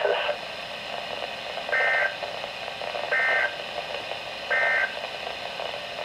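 A Midland weather alert radio's speaker sends the Emergency Alert System end-of-message code: three identical short two-tone data bursts, evenly spaced about a second and a half apart, over faint radio hiss. These bursts mark the end of the Severe Thunderstorm Warning message.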